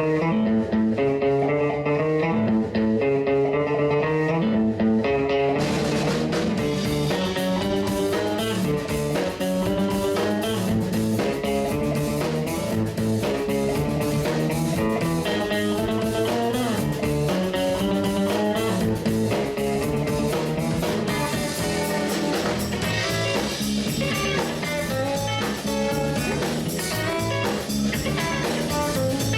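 Background music: a blues-rock track led by guitar, with drums joining about five seconds in.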